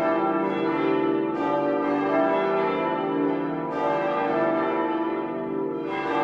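The full peal of the church bells of St. Andreas: several large bells ringing together, their strikes overlapping into a continuous, steady ringing.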